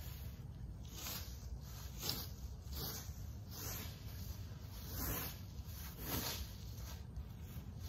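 Leaf rake dragged through dry fallen leaves and grass, a scraping, rustling swish about once a second as the leaves are pulled onto a pile.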